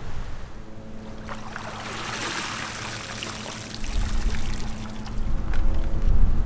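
Seawater pouring and splashing out of a crab trap as it is lifted from the water on its line. A steady low hum runs underneath, and from about four seconds in wind rumbles on the microphone.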